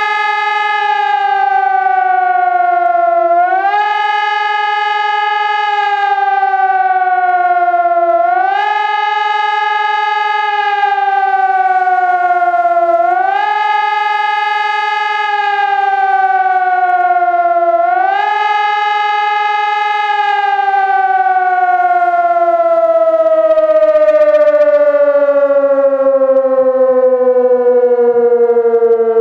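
SES 1200 civil-defence siren sounding the German public-warning signal: a wailing tone that rises quickly, holds briefly and slides down again about every five seconds. About twenty seconds in, the cycle stops and the pitch falls away slowly as the siren winds down at the end of the signal.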